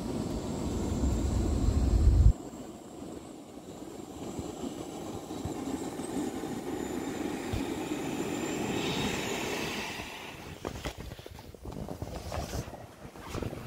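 Air rushing out of the open valve of a large vinyl inflatable toy as it deflates, with a heavy low rumble that stops abruptly about two seconds in. Near the end the steady rush fades into scattered crinkling of the collapsing vinyl.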